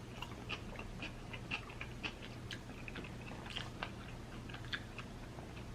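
A person chewing food close to the microphone: soft, irregular wet mouth clicks and smacks, a few each second, over a faint steady hum.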